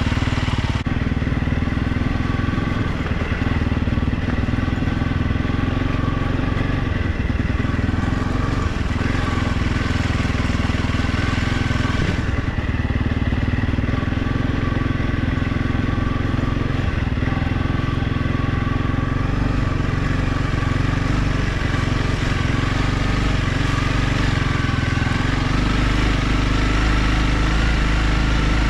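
Motorcycle engine running steadily while being ridden, holding a fairly even pitch.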